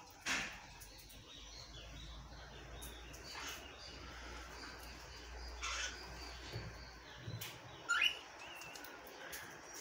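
Gouldian finches in a cage giving short, scattered chirps, a few sliding down in pitch, the loudest about eight seconds in.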